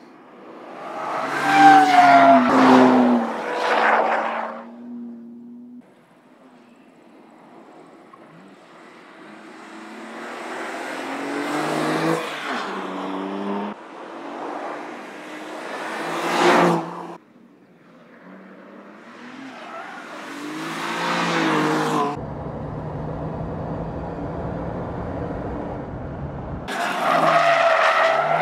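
BMW M2 Competition's three-litre twin-turbo inline-six driven hard, its engine note rising and falling through the gears in several passes that swell and fade, joined by abrupt cuts. Near the end it holds a steadier drone for a few seconds.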